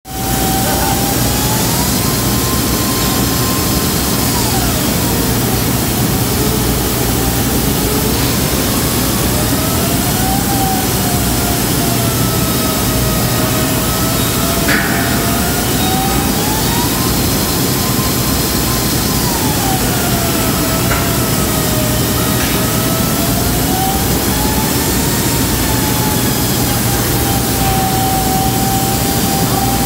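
Repair robot's grinder running continuously during an intermediate grinding pass on an OSB press: a loud steady noise over a low hum, with a whine that slowly falls and rises in pitch every six or seven seconds. One short click about halfway through.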